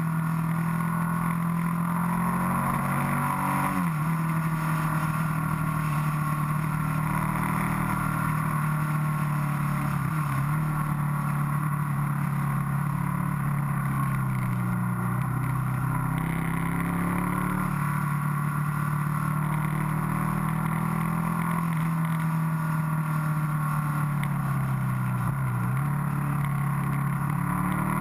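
Motorcycle engine heard from on board, running continuously under changing throttle, its pitch dropping sharply and climbing again about four times as the rider shifts and eases off through the bends, over a steady rush of wind noise.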